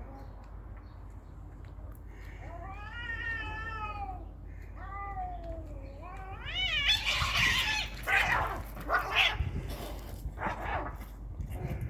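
Cats in a fight: long, wavering yowls that rise and fall in pitch, breaking into louder harsh screeches in the second half.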